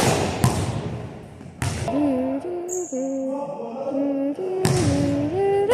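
Basketball dunk session on a hardwood gym floor: several sharp, echoing thuds of the ball bouncing and the dunk hitting the rim, near the start, about a second and a half in and near the end. In between, a voice holds a few stepping melodic notes.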